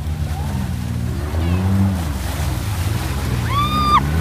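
Off-road side-by-side engine running, its pitch rising and falling unevenly as the throttle is worked over rocky ground. Near the end there is a short high-pitched squeal.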